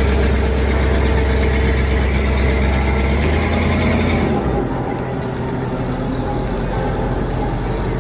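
Heavy engine running steadily, with a strong low hum that weakens and changes character about four seconds in, as a forklift carries a heavy load toward a flatbed trailer.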